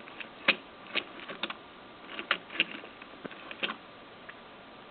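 Scattered light clicks and taps of a small die-cast metal toy truck being handled and turned over, about seven irregular ticks.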